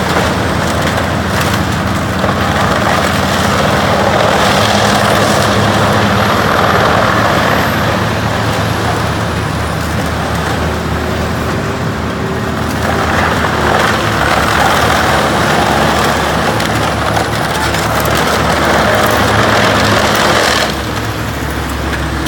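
Large industrial wood grinder running, its engine holding a steady low hum under the loud, noisy grind of wood being chewed up. The grinding noise swells and eases and drops back somewhat near the end.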